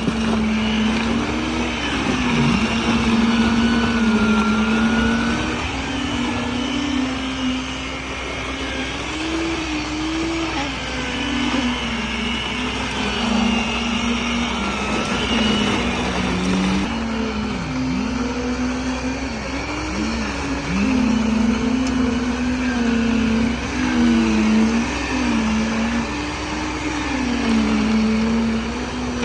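A motor on a concrete pour runs steadily, its pitch sagging and recovering again and again as its load changes.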